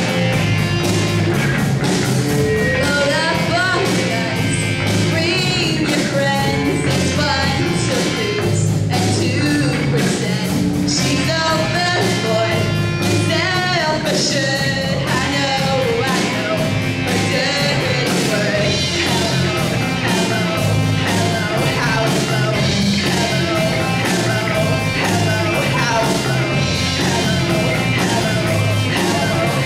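Live rock band: a girl singing into a microphone over electric guitar, bass guitar and drum kit, with a steady driving beat.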